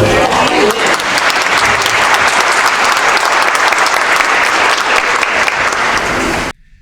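Audience applauding, a dense patter of clapping that cuts off abruptly near the end.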